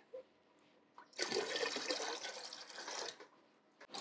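Water poured from a stainless steel saucepan into a large stainless steel pot of spirit, splashing steadily for about two seconds from a second in. The water is being added to proof the distilled spirit down to about 60% ABV.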